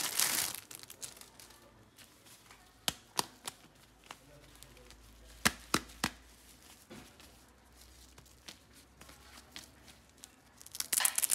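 Plastic packaging bag crinkling as it is opened. Then a few sharp clicks and taps, in two groups of three, while the item is handled, and another burst of crinkling near the end.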